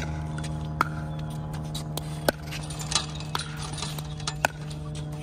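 Pickleball paddles striking the ball and the ball bouncing on the hard court: about half a dozen sharp pops, irregularly spaced, over a steady low hum.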